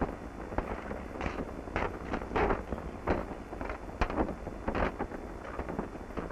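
Steady wind rumble on the microphone, with a scatter of irregular thumps and knocks from about one to five seconds in.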